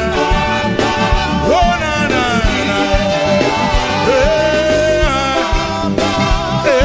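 Live gospel praise music: a band with drum kit and bass guitar plays a steady beat while voices sing over it, holding and sliding between notes.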